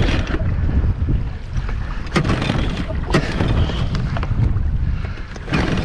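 Wind buffeting the microphone over a low rumble, with water lapping against an inflatable boat and a few sharp knocks.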